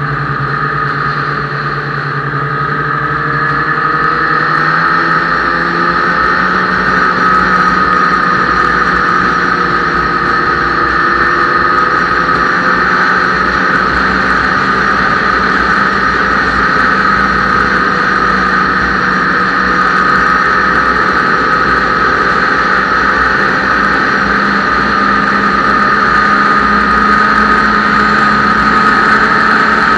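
Ski-Doo snowmobile's two-stroke engine running under way. It picks up speed a little in the first few seconds, then holds a steady pitch.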